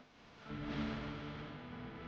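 Background music starts about half a second in, with sustained pitched notes.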